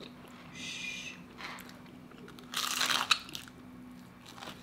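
Biting into crispy-coated fried chicken, the breading crunching: a few short crunches, the loudest about two and a half seconds in.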